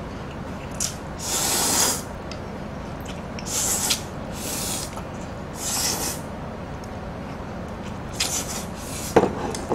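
Two people slurping spicy stir-fried noodles, about six separate hissing slurps, one of them nearly a second long, with a short knock near the end.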